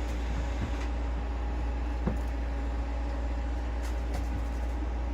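Robot vacuums running: a steady motor whir and hum, with a few light clicks and knocks.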